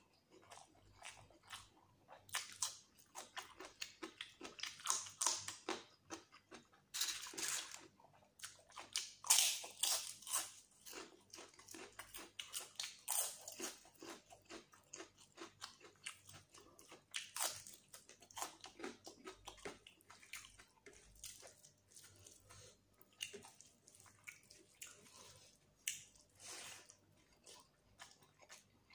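Close-miked chewing of handfuls of curry-soaked pulao rice eaten by hand: an irregular run of short mouth clicks and smacks.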